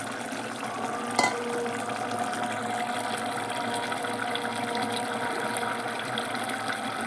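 Tamarind potato curry boiling in an open pot, a steady bubbling sizzle, with one short click about a second in.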